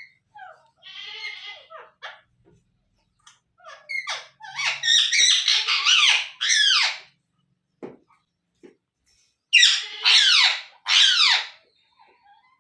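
Indian ringneck parakeet calling: a short scratchy chatter about a second in, then a run of loud, harsh, down-sliding screeches, and three more loud down-sliding screeches near the end.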